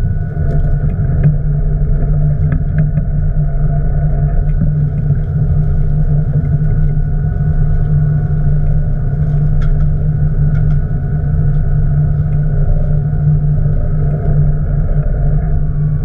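Boat engine running steadily at constant speed, a continuous low drone with a few faint clicks over it.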